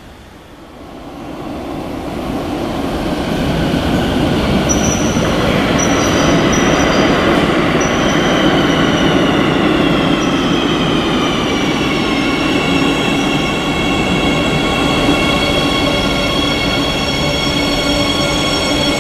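Madrid Metro Serie 8400 train arriving at the platform. The rumble of wheels on rails grows louder over the first few seconds. High tones then fall in pitch as the train slows and settle to a steady whine.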